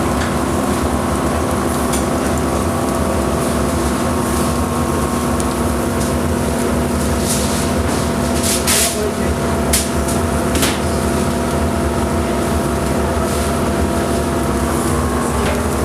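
Steady mechanical hum with a noisy rush behind it, broken by several short, sharp hisses about halfway through.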